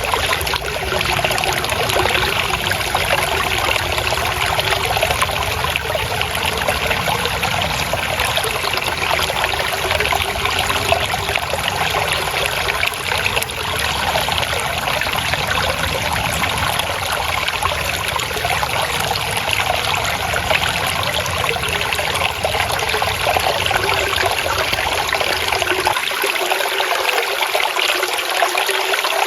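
Water trickling and babbling steadily, like a shallow stream flowing over stones. The deep low rumble under it drops away near the end.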